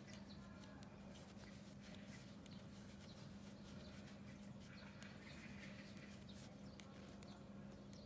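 Near silence: room tone with a steady low hum and faint scattered ticks from bamboo knitting needles working bouclé yarn.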